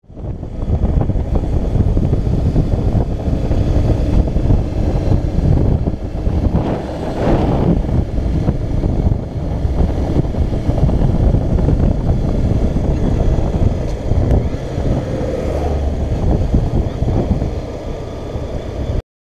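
Wind rushing over the microphone of a camera mounted on a moving Honda CBF125 motorcycle, with the bike's engine and road noise underneath, swelling louder about seven seconds in. The sound cuts off abruptly just before the end.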